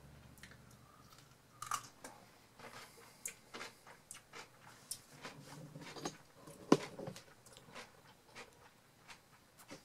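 A person chewing a crunchy dill pickle: irregular wet crunches and clicks of chewing, with one sharper click about two-thirds of the way through.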